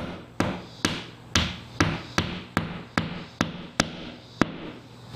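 Hammer tapping a plastic wall anchor into drywall: about a dozen light, evenly spaced strikes, roughly two a second, each with a short ring, stopping about four and a half seconds in.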